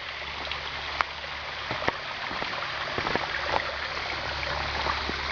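Small mountain waterfall and stream: water running and splashing steadily over rocks, with a couple of sharp clicks about one and two seconds in.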